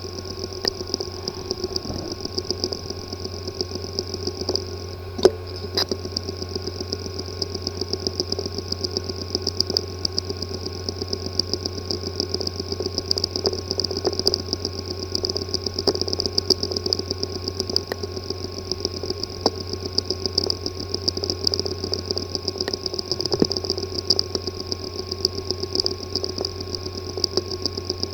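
Hard drive with a physically damaged disk assembly, running with a steady hum, buzz and high whine under rapid, irregular ticking, with one sharper click about five seconds in.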